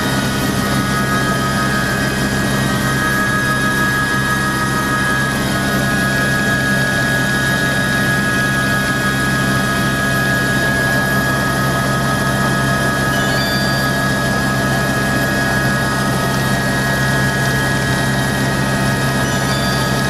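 Helicopter turbine engine and rotor running steadily: a constant drone with several steady high whining tones over it.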